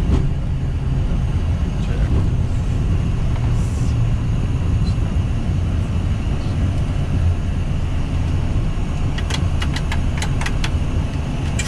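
Flight-deck noise of a Boeing 737-800 rolling on the runway after landing: a steady low rumble of engines and wheels, with a few sharp clicks near the end.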